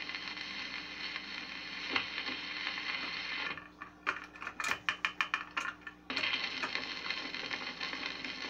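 Automatic record changer of a 1961 Arvin portable phonograph cycling between 78 rpm sides. Steady record-surface hiss with a faint hum gives way about three and a half seconds in to a rapid run of clicks and clatter from the change mechanism. About six seconds in the hiss cuts back in suddenly as the needle sets down on the next record.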